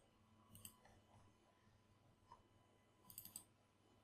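Near silence with a few faint clicks from someone working at a computer: one about half a second in, a small one past two seconds, and a quick cluster near the end.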